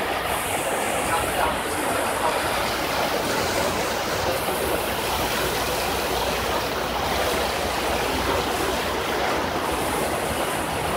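Steady rushing of water churning along a Staten Island Ferry's hull, over a low, even engine hum.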